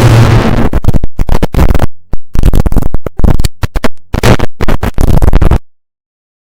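Harsh noise music: a loud, dense wall of distorted noise that breaks into choppy stop-start bursts, then cuts off suddenly to dead silence a little over five seconds in.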